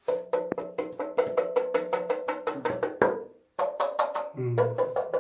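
Hand rapidly striking the cave's ringing dripstone rock formations, each stone giving its own pitched knock. A quick run of strokes with a ringing note under them, a short break about three seconds in, then more strokes.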